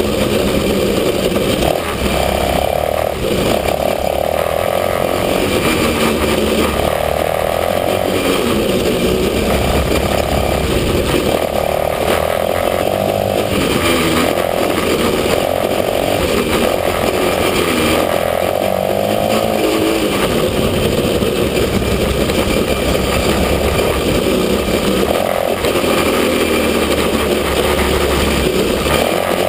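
Small engine of a kids' Chinese ATV running under way on a dirt trail, its note repeatedly rising and falling as the throttle is opened and eased off.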